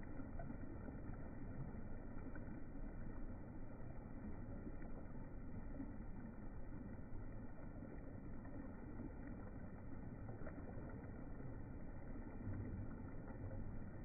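Shallow stream rushing steadily over stones and riffles.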